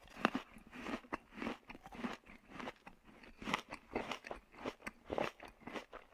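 Close-up chewing of a burger: irregular crunchy bites and wet mouth sounds, a few a second.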